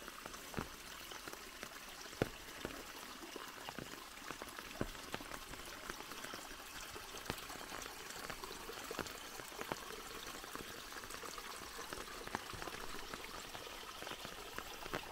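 A thin flow of muddy runoff water trickling out of a pond's outlet and splashing into a pool below: a faint, steady splashing with scattered small clicks.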